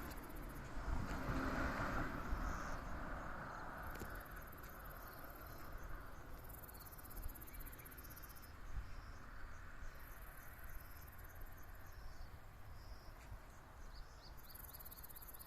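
Insects trilling in repeated bursts of fast, high pulsing, with short chirps near the end. A low rumble fades away over the first few seconds.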